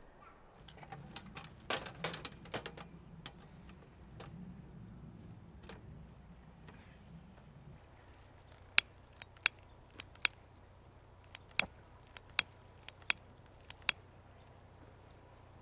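Split pine kindling catching in a small steel fire pit, crackling. A cluster of clicks over a low rustle comes first, then sharp single pops at irregular intervals in the second half.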